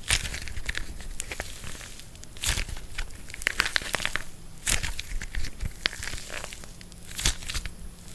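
Dried plaster clay being cracked and crushed, with many small crackling snaps and four louder crunches spaced about two and a half seconds apart.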